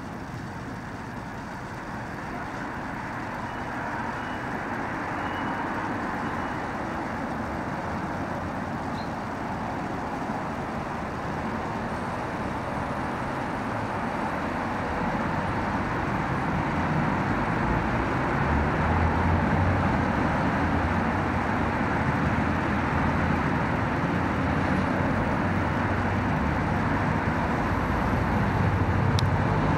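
Steady background rumble of road traffic, growing louder in the second half. No watch ticking stands out.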